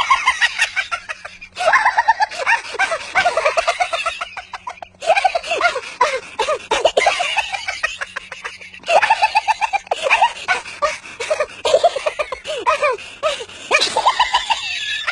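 High-pitched, rapid chattering voices in quick, choppy runs, broken by brief pauses a few times.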